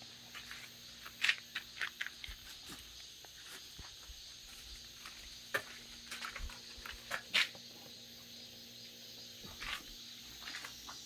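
Crickets chirping steadily, with scattered short crinkles and clicks of handling now and then.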